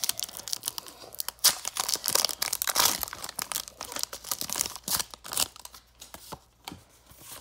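Foil wrapper of a Pokémon booster pack being torn open and crinkled by hand: a run of crackling rips that thins out after about five seconds.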